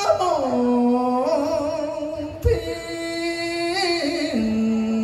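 A man singing cải lương through a microphone and PA, holding long notes with vibrato that glide and step downward in pitch.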